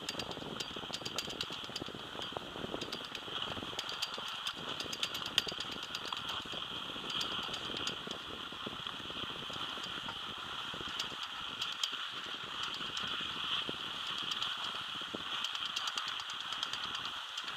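Ride on a surface drag lift: a steady hiss of sliding over the packed snow track, with a continuous irregular rattle and clicking from the lift's towing pole and hanger.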